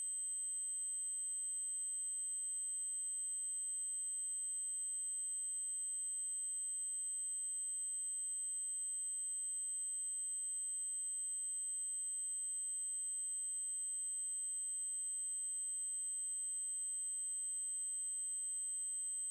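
Synthesised 8192 Hz triangle-wave tone, a very high-pitched steady whine held without change.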